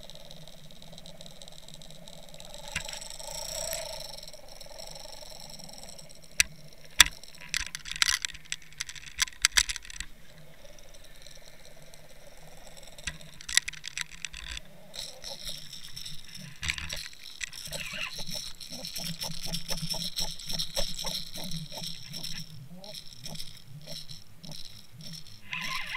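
Underwater rattling and clicking picked up by a camera housing on a fishing rig, over a steady low hum. There are scattered sharp clicks in the first half, then a fast, dense run of clicks through the second half.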